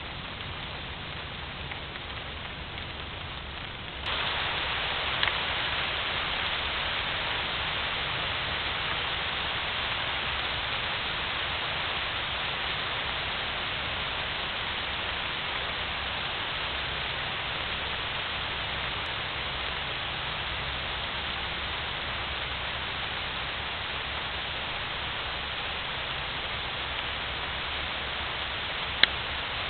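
Steady hiss of a rain shower on leaves and grass, picked up by a trail camera's microphone. It gets louder about four seconds in, and a sharp click sounds near the end.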